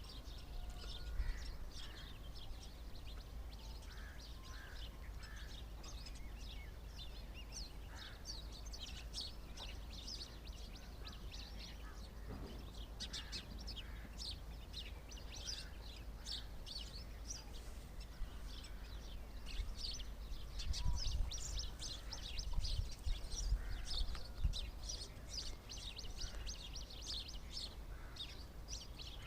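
Small birds chirping continuously, many quick high chirps overlapping one another. A low rumble runs underneath and grows louder about two-thirds of the way through.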